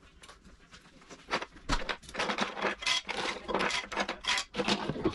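Plastic kitchen tools scraping and knocking against a wooden drawer bottom as they are picked out by hand and set on a stone countertop: irregular short clatters and rubs, starting about a second and a half in.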